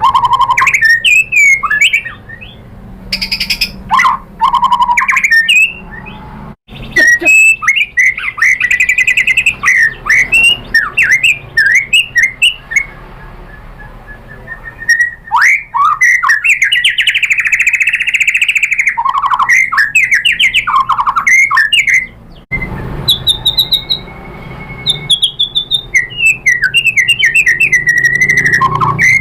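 White-rumped shama singing a rapid, varied song of whistles, chirps and harsh rattling notes in loud bursts separated by short pauses.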